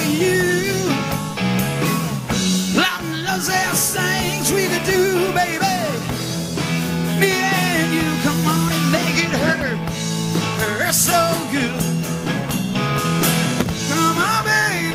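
Live rock band playing with drums, bass and electric guitar, a man's voice singing over it.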